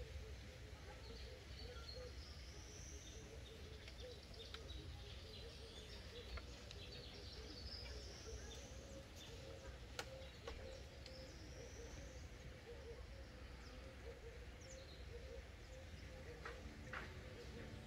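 Faint outdoor ambience: a low steady rumble with a few bird calls, rising chirps heard several times. A few scattered sharp clicks, one about ten seconds in.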